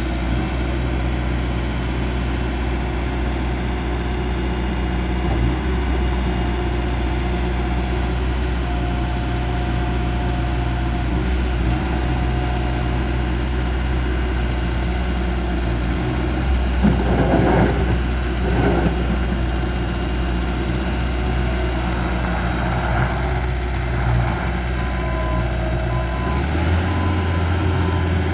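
Engine of a Bobcat T595 compact track loader running steadily, with two short louder noises about two-thirds of the way through and a change in the engine note near the end.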